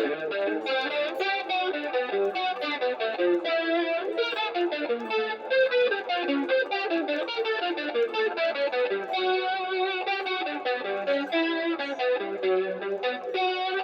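Electric guitar played through a compressor pedal and a BSM wah pedal: a continuous run of quickly picked notes and short chords.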